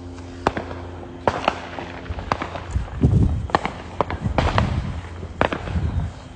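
Fireworks going off: a string of sharp cracks and bangs, with deeper rumbling booms about three seconds in and again near the end. A steady low hum runs underneath for the first couple of seconds.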